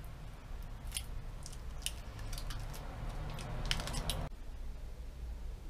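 Protective plastic film being peeled off a new bicycle brake lever: a run of small crackles and clicks that stops abruptly about four seconds in.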